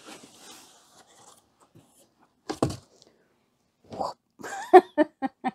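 Cardboard box rustling as it is handled and emptied, fading within the first second or so, then a single thump about two and a half seconds in. Near the end come a few short wordless vocal sounds from a woman.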